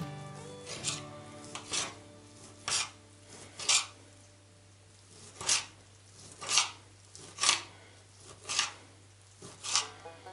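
A kitchen knife dicing ham on a glass cutting board: a short scraping knock of the blade against the glass about once a second, nine strokes or so.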